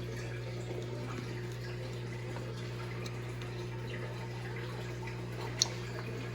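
Small plastic parts and wire connectors being handled, with scattered faint clicks and one sharp click about five and a half seconds in, over a steady background hum and hiss.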